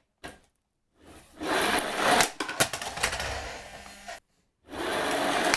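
Plastic toy monster truck rolling and scraping across the floor after a push, with knocks and clatter from its wheels and body. A single click comes first, then the rolling noise, which stops abruptly about four seconds in and starts again near the end.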